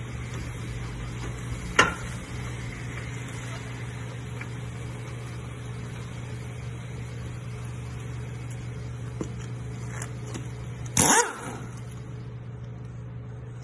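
Steady low hum with a sharp metallic clank about two seconds in and a few faint clicks as a floor jack handle is pumped to lift the car. About eleven seconds in, a pneumatic impact wrench on a wheel's lug nut fires one short burst.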